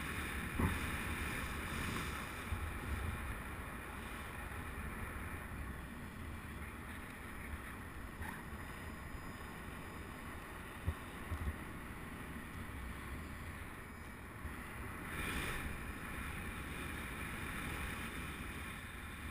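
Wind rushing over a helmet-camera microphone in paraglider flight: a steady rush with low buffeting, a few brief knocks and a swell in the rush about three quarters of the way through.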